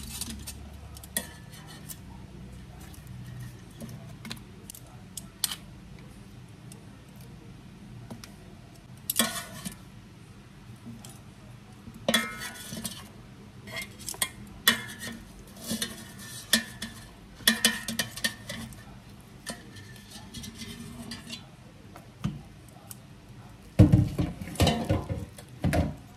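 Metal kitchen tongs clicking and scraping against an air fryer's perforated nonstick basket as roasted food is lifted out, in scattered clatters. Heavier knocks come near the end as the meat is set down on a cutting board.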